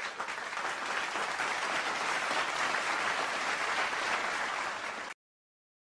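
Audience applause, many hands clapping, swelling over the first second, then holding steady until it cuts off abruptly about five seconds in.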